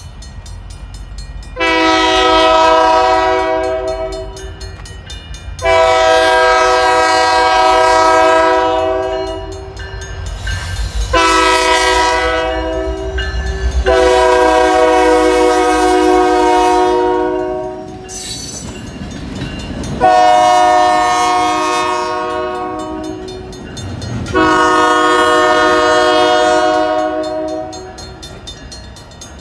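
Diesel freight locomotive's air horn sounding the grade-crossing signal: two long blasts, a short one and a long one, then after a short pause two more long blasts. Under the horn runs the low rumble of the passing locomotive and train.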